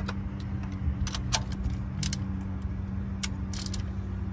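Metal hand tools clicking and clinking during spark-plug work: a scattering of sharp, irregular metallic clicks over a steady low hum.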